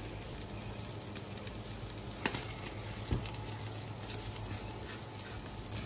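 Food sizzling quietly on a barbecue grill, with a few sharp crackles and pops of cooking fat.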